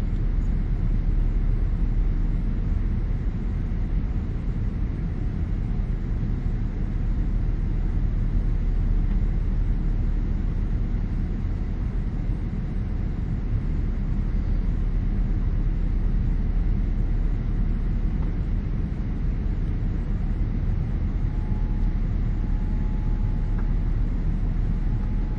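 Steady low rumble of engines and airflow heard inside the cabin of a Boeing 787-9 airliner. A faint steady tone comes in near the end.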